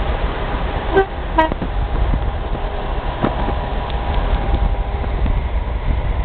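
Two short horn toots about a second in, over the steady road noise of a moving car.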